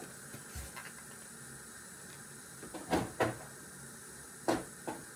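A few hard knocks and clunks of things being handled, like dye containers or a cupboard: two close together about three seconds in and a louder one about a second later, over the low steady hiss of a steaming dye pot.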